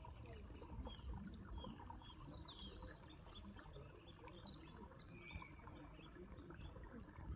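Small shallow stream trickling over stones, faint and steady, with birds chirping over it in short repeated calls.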